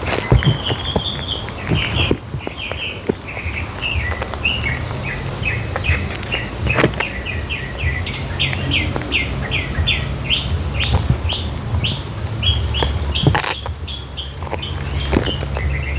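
Songbird singing a long, quick run of short chirping notes, over a low steady rumble, with a few sharp clicks from handling.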